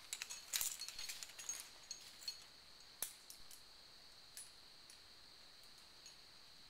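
Climbing hardware, carabiners and quickdraws on a lead climber's harness, clinking and jingling as he pulls up rope to clip, in a flurry over the first two seconds, with one sharper metallic click about three seconds in.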